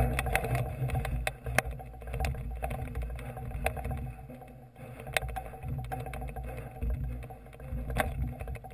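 Low rumble of handling and air on a camera fixed to a galvanised steel roof truss as it is carried, with irregular sharp metallic clicks and knocks from the truss.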